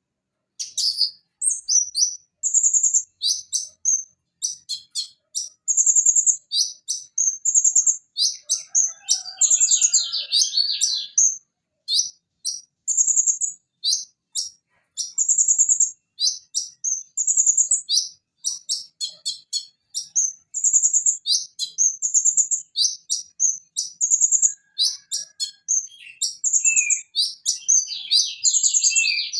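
Purple-throated sunbird (konin) singing: rapid high-pitched chips and trills in quick bursts, with denser trilling phrases about ten seconds in and again near the end.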